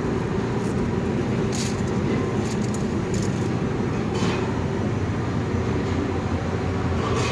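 Pellet-fired aluminium melting furnace running with a steady low roar from its burner and air blower, with a couple of brief crackles.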